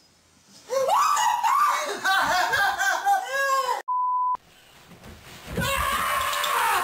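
A person screaming loudly in high, wavering cries about a second in. Just before the middle comes a short steady test-tone beep, about half a second long, then loud screaming and yelling again.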